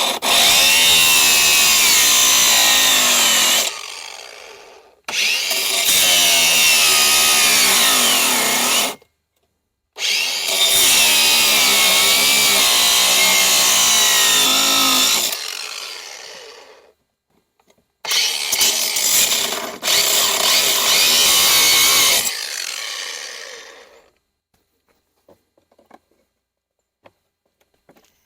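Ryobi cordless angle grinder with a grinding wheel grinding at a stripped nut on a metal bolt, in four bursts of several seconds each, the motor pitch wavering under load and winding down after each release. It falls quiet for the last few seconds.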